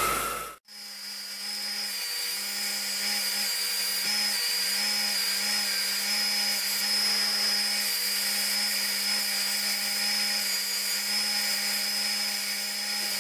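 Porter-Cable bench grinder running at steady speed with a steady high whine, while a metal part of the grill frame is buffed with rouge on its polishing wheel. The sound drops out briefly about half a second in.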